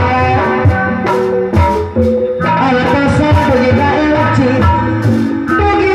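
Live band music for a jaipong-style Topeng show: melodic instrument lines over a bass part, punctuated by drum strokes.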